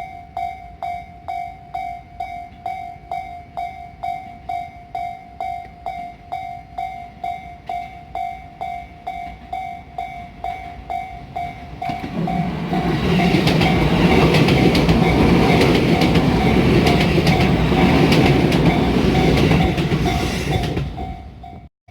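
Japanese level-crossing warning bell ringing a steady electronic tone about twice a second. About twelve seconds in, an electric train passes over the crossing, louder than the bell, its wheels clicking over the rail joints, until the sound cuts off suddenly near the end.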